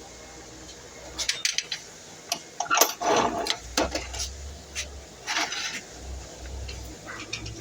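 A workpiece being handled and set in place at the miter saw: a string of clicks and knocks, with short scraping rubs of material sliding, and no saw motor running.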